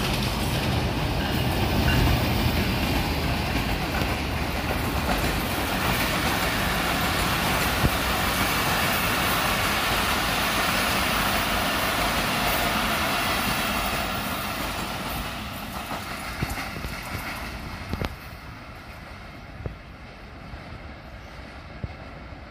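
A diesel-hauled passenger train passes close by: the GEU-20 diesel-electric locomotive runs past with a heavy low rumble, then the coaches roll by with steady wheel-on-rail noise. After about 14 seconds the sound fades as the last coach draws away, leaving a few sharp clicks from the wheels near the end.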